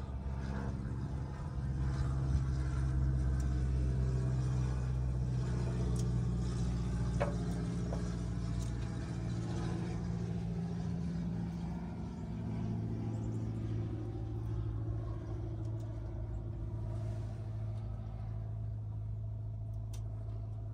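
Steady low mechanical drone of a motor running, its pitch stepping up about 2 s in and settling lower about 12 s in.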